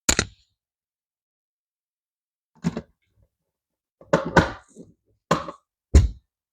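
About six short clicks and knocks of a Phillips screwdriver and wire working the screw terminals of a sprinkler controller's terminal strip, with silence between them. The last one, about six seconds in, is a heavier thunk.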